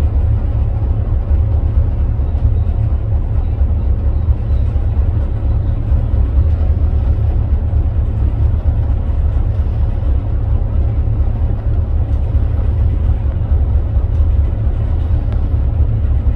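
Large passenger ferry under way, its engines giving a loud, steady low rumble heard on board, with a faint steady hum above it.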